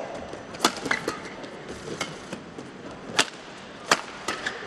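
Badminton rally: rackets striking the shuttlecock in sharp cracks roughly a second apart, over a low hum of arena background.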